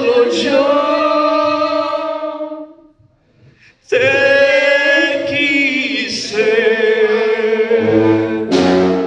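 A man and a woman singing a ballad together with a live orchestra, holding long notes with vibrato. About three seconds in the music stops for a moment, then a new held phrase begins and the orchestra, with brass, comes in under it toward the end.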